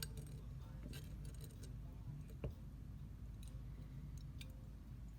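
Light metallic clicks and taps of small gun parts being handled and fitted on an AR-15 lower receiver, about half a dozen spread out, the sharpest about halfway through, over a low steady hum.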